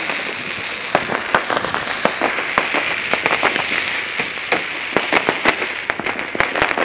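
Fireworks display going off: a dense, irregular run of sharp crackling pops over a steady hiss.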